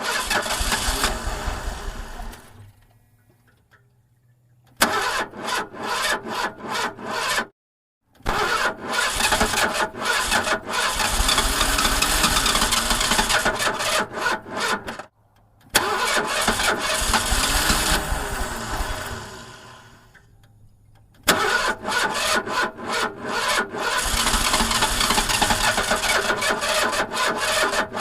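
An old car's engine being cranked by its starter over and over without catching. There are about five cranking attempts of a few seconds each, with short pauses between them, and each has a pulsing rhythm as the engine turns over.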